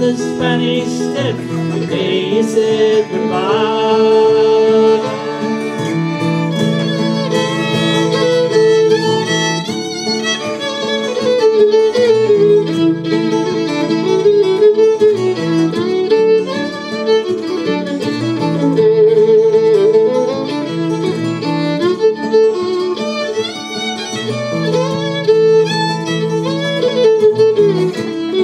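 Fiddle playing the melody over a strummed acoustic guitar, an instrumental break in a folk song with no singing.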